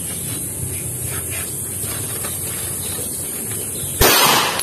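A single Taurus G3 pistol shot about four seconds in: one sharp, loud report with a short ringing tail.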